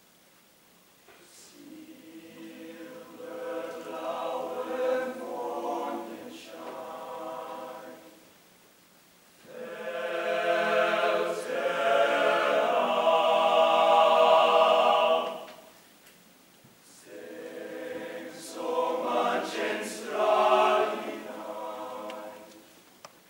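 A 17-voice unaccompanied male choir singing in three phrases with brief pauses between them; the middle phrase is the loudest.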